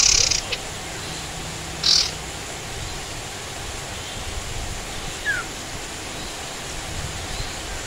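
Sirtu songbird giving two short, harsh calls about two seconds apart, with a faint brief note near the end, over a steady hiss of rain.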